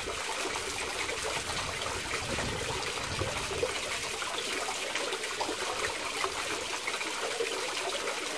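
Two-tier garden fountain running: water spilling from the upper bowls and trickling and splashing into the basin, at a steady level.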